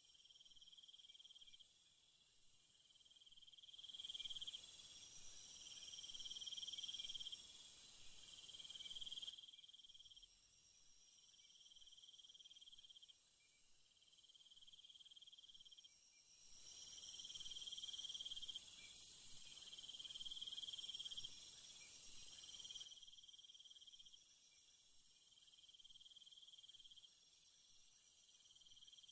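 Faint, high chirping of insects in repeated trills about a second long, coming every couple of seconds over a steady high hiss, growing louder for several seconds past the middle.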